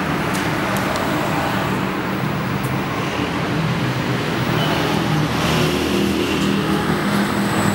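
Steady traffic noise: road vehicles running, with a constant low hum.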